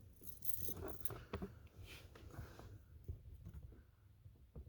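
Faint handling noise: scattered light clicks and rustling, with a few sharper ticks.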